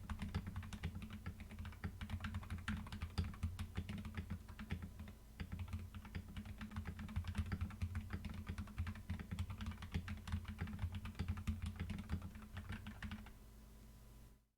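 Rapid typing on a computer keyboard, picked up through a Fifine K669 condenser microphone with the keyboard behind the mic. A steady low hum runs underneath, and the typing stops about a second before the end.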